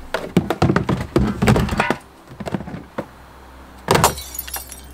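A quick run of knocks, clicks and thunks from parts and tools being handled on a Sea-Doo personal watercraft, densest in the first two seconds, with a few scattered ticks and a sharp clatter about four seconds in.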